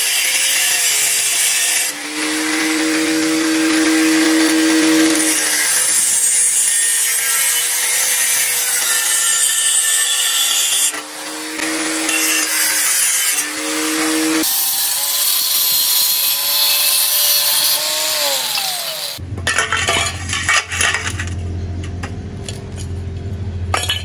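Angle grinder with a thin cut-off disc cutting through welds in thin steel square tubing, the motor's pitch shifting as the disc cuts. Near the end it winds down and stops, followed by a few knocks of steel tubes being set down on a concrete floor.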